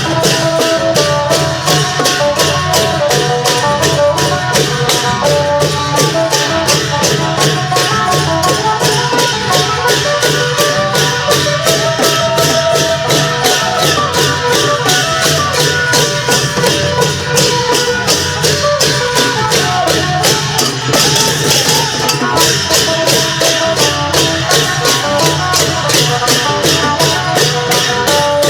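Isan klong yao long-drum band playing: a phin lute melody over long drums and a steady, fast beat of cymbals.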